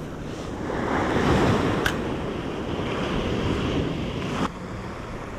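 Ocean surf washing up a sandy beach, with wind buffeting the microphone. The wash swells loudest about a second in, a single sharp click comes about two seconds in, and the sound drops suddenly about four and a half seconds in.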